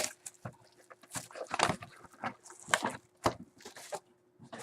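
A trading card pack being torn open and handled: irregular crinkling and tearing of the wrapper with small rustles and clicks.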